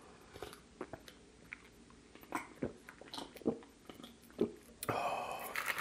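A person gulping a drink from a glass close to the microphone: a string of short swallows, about two a second, followed by a louder breathy exhale near the end.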